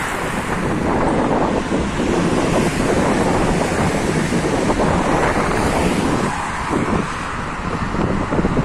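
Wind buffeting the microphone of a motorcycle on the move: a steady, loud rushing noise.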